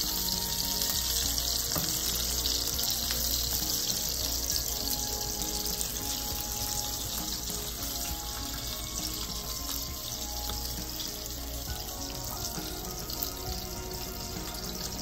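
A steady hiss, with music playing underneath.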